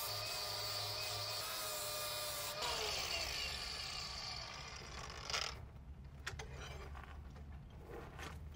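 Angle grinder running against the corner of a steel flat bar, deburring it and grinding a channel for the weld; about two and a half seconds in it is switched off and its whine slides down as the wheel spins down, followed by a few light knocks.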